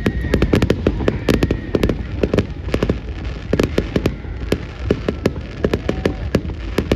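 Firecrackers or crackling fireworks going off in a rapid, irregular run of sharp pops, several a second, over a steady low rumble.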